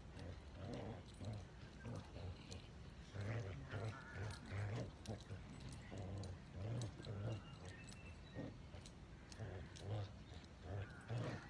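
Dog growling in short, rough bursts while pulling in a game of tug.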